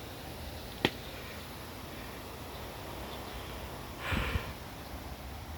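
Quiet steady background with one sharp click about a second in and a short breathy sound, like a sniff, about four seconds in.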